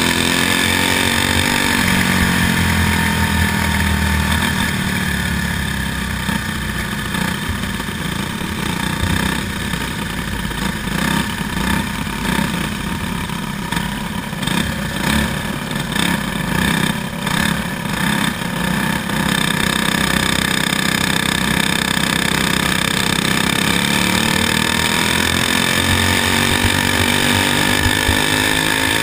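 Racing kart's single-cylinder engine heard onboard while racing on a dirt track. Its pitch falls a couple of seconds in, runs lower and choppy with a pulsing level through the middle, then climbs again over the last few seconds as the kart comes back on the throttle.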